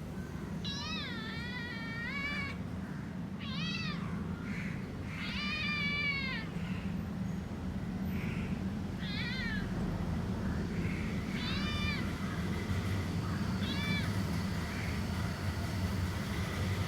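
A domestic cat meowing repeatedly: six clear meows, the first and third longer, with a few softer calls between them. A steady low hum runs underneath.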